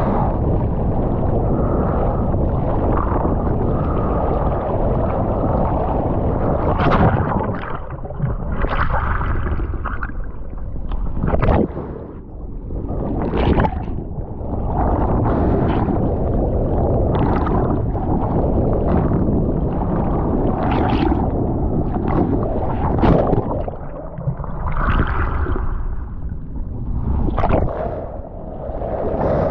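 Ocean water rushing and sloshing right at the microphone of a camera at the surface in rough, windy surf. After a steady rush, splashes come about every two seconds from a swimmer's arm strokes.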